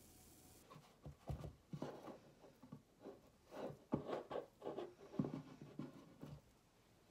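Butter being rubbed by hand around the inside of metal loaf pans: a run of irregular soft rubbing and scraping strokes, with a few light knocks, starting about a second in.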